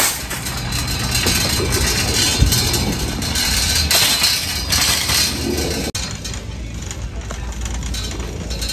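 Shopping cart rolling and rattling over pavement as it is pushed, with a plastic basket and metal frame. About six seconds in the sound cuts abruptly to quieter indoor noise.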